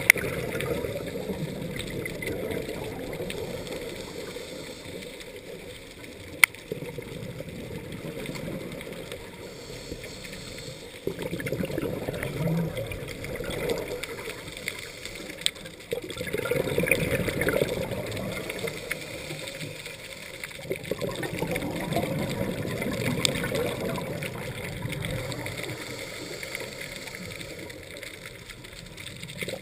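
Scuba diver breathing through a regulator, heard underwater: bubbles gurgle out in a rushing swell on each exhale, every few seconds. A couple of sharp clicks stand out.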